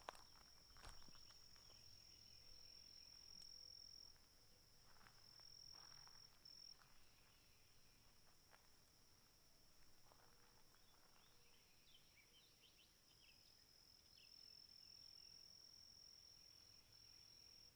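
Faint, steady high-pitched insect trilling that breaks off briefly a few times, with softer chirping below it and a couple of faint clicks in the first second.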